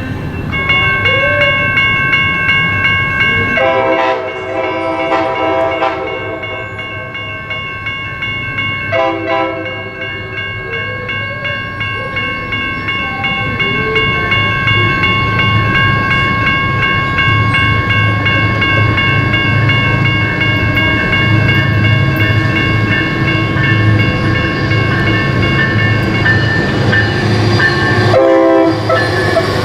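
Amtrak passenger train nearing a grade crossing: the crossing bell rings steadily until shortly before the end. The locomotive's multi-chime horn sounds a long blast about four seconds in, a shorter one about nine seconds in, and another near the end, as the rumble of the locomotive builds.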